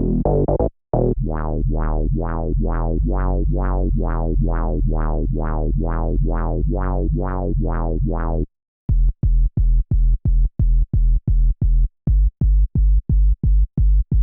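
UK garage-style synth bass preset from Xfer Serum 2 playing a riff: a deep held note pulsing in a steady rhythm, about three pulses a second. About eight and a half seconds in, it switches to short, choppy bass stabs at about the same rate.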